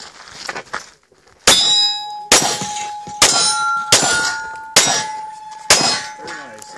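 Six pistol shots, a little under a second apart, each followed by the ringing clang of a hit steel target, the ring carrying on between shots.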